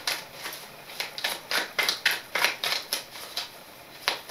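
A deck of tarot cards being shuffled by hand: short strokes of cards slipping and tapping against each other, about three a second and uneven.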